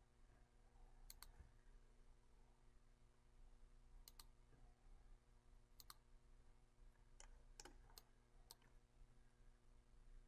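Faint computer mouse clicks, each a quick press-and-release pair, coming every second or so as mesh edges are picked one after another. A low steady electrical hum lies under them.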